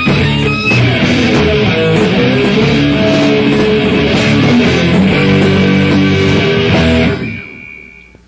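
Rock band playing loud electric-guitar-led music that stops about seven seconds in, with a last note ringing on and fading out.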